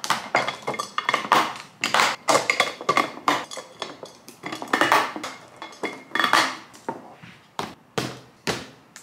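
Glass food-storage containers getting their plastic snap-lock lids: lids pressed on and clip tabs snapped shut, a quick irregular run of clicks and clinks. Near the end the containers are set on top of one another with a few sharp knocks.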